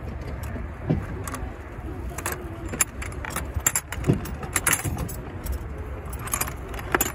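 Scattered sharp metallic clinks and clatters of hand tools being handled, over a steady low rumble.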